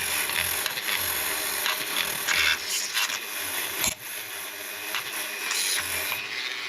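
An abrasive tool scrubbing corrosion off the coolant hose spigots of a Honda CBR900RR, making a harsh, scratchy noise with a short break about four seconds in.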